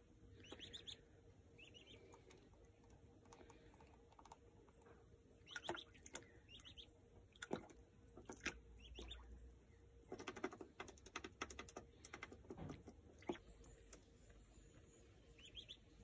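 Faint splashing and pattering of water as an Australian wood duckling (maned duck) bathes in a shallow plastic tub, dipping and shaking. The splashes come in quick bursts, most through the middle stretch, with a few soft high peeps near the start and again near the end.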